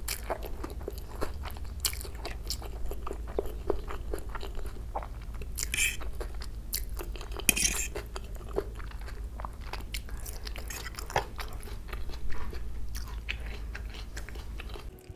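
Close-miked chewing of a mouthful of fried Maggi instant noodles: many small wet mouth clicks and smacks, with two brief louder rustling noises near the middle.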